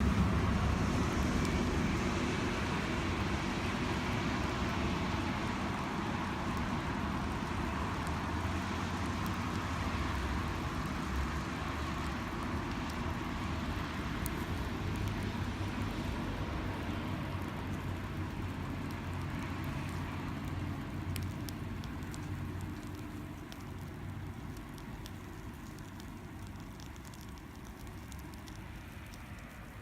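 Wood campfire burning with a steady rushing of flames that slowly dies down, with scattered sharp crackles and pops from the burning wood.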